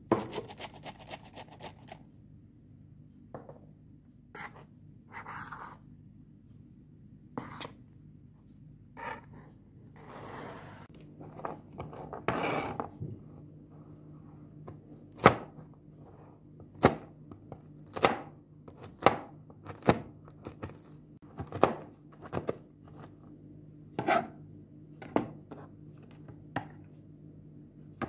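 Kitchen knife chopping walnut halves on a plastic cutting board: about a dozen sharp, separate strikes, roughly one a second, starting around halfway through, the first the loudest. Before that, a quick run of clicks at the start and soft scraping and rustling as the nuts are handled.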